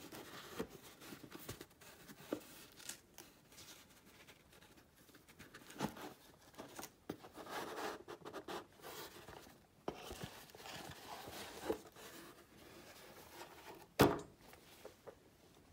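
Faint unboxing handling noise: a cardboard gift box being slid open and handled, and a fabric dust bag rustling and brushing, with scattered soft taps and one sharper knock near the end.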